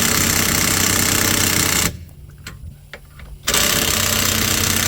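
Impact wrench hammering as it runs down the new rear strut's mounting bolts. It stops about two seconds in, then gives a second burst of about a second and a half near the end.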